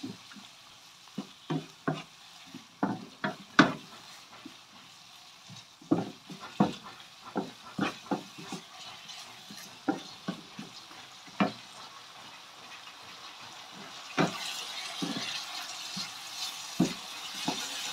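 A wooden spatula knocks and scrapes irregularly against a nonstick frying pan as spice paste, lemongrass and leaves are stir-fried until fragrant. Under the knocks there is a low sizzle, which grows louder about three-quarters of the way through.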